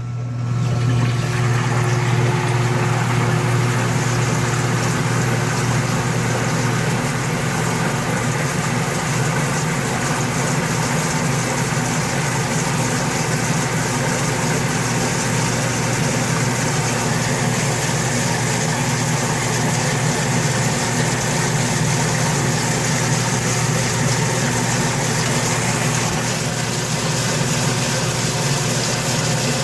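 Washing machine starting its spin cycle: the motor, drum and drain pump run with a steady low hum. It is not draining properly, a fault the owner puts down to a worn-out drain pump.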